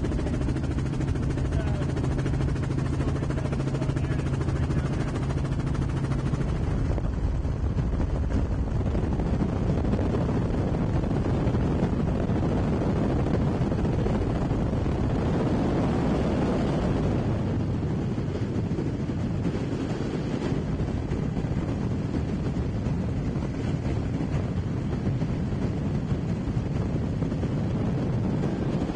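Light helicopter in flight, heard from inside the cabin: a steady engine and rotor drone with wind rush. A low hum under it gives way to a broader rushing noise about seven seconds in.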